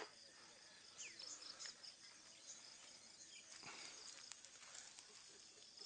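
Faint insects calling: a steady high trill with a few short chirps, over near silence.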